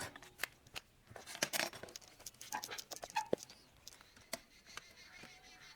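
Screwdriver prying a bicycle tyre's bead off the steel rim: scattered clicks and scrapes of metal on metal and rubber, with a few short squeaks.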